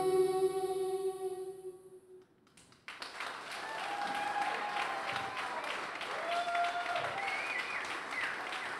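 A children's choir holds a final sung chord that fades away over about two seconds. After a short silence an audience breaks into applause, with a few voices calling out over it.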